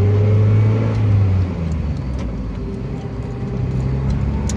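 Four-cylinder engine of a first-generation (NA) Mazda Miata running as the car drives. The engine note drops about a second and a half in as the driver eases off to change up into second gear, and carries on steadily and quieter after that. No clutch-release squeal stands out.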